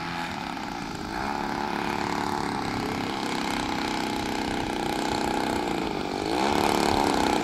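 Radio-controlled aerobatic model airplane's engine running at low throttle as the plane rolls out and taxis after landing. About six seconds in its pitch rises and it gets louder.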